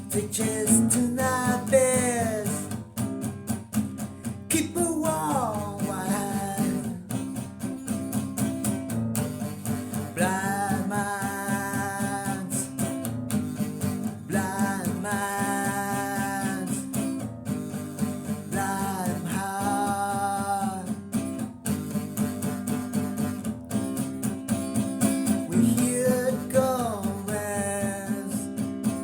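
Rock song instrumental passage: a guitar plays a melodic lead with notes sliding up in pitch, over strummed guitar chords.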